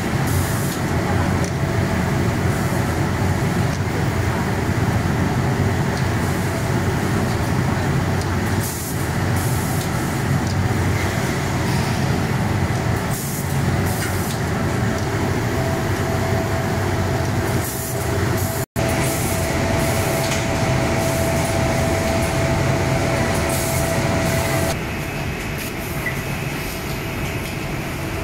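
Heliot Socksteam-MIDI sock boarding machine and factory machinery running: a steady low mechanical hum broken by short hisses. A thin steady whine joins about halfway through, then cuts out, and the level drops to a quieter factory hum near the end.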